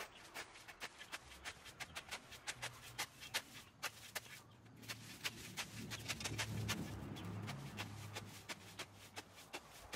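A shovel scooping and tossing dry leaf litter and dusty soil, with a quick, irregular run of crisp crackles and scrapes. A low hum sits under it through the middle.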